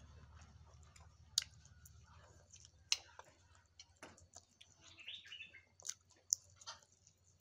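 Close-miked chewing of a mouthful of rice noodles, with soft wet mouth sounds and several sharp clicks spread through it, over a steady low hum.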